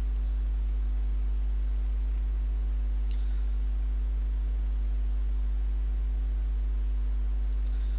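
Steady low electrical hum with a stack of evenly spaced overtones: mains hum picked up in the recording.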